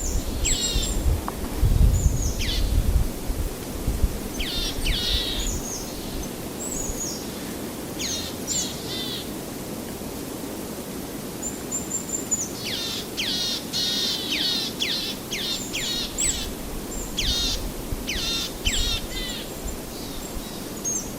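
Small birds chirping: quick, high calls that each sweep sharply downward, coming in clusters and growing busier about halfway through. A low rumble of background noise runs underneath, strongest in the first few seconds.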